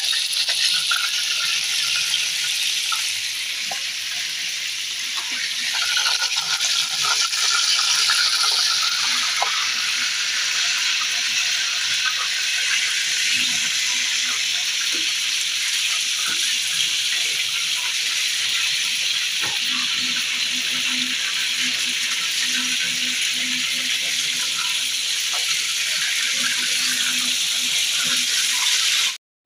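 Chicken seekh kebabs shallow-frying in hot oil in a frying pan: a steady sizzling hiss with occasional light clicks of a metal spatula against the pan, cutting off suddenly at the end.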